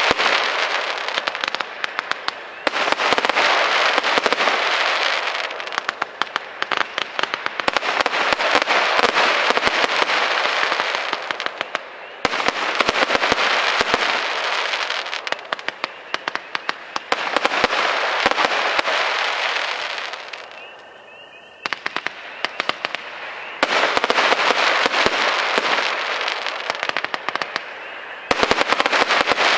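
Fireworks going off shot after shot, each burst of crackling stars giving several seconds of dense crackling, with short lulls between shots.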